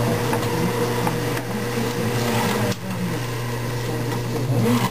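Drill press motor running with a steady hum as the bit is fed into a metal block held in a drill-press vise. The sound drops suddenly and turns quieter a little under three seconds in.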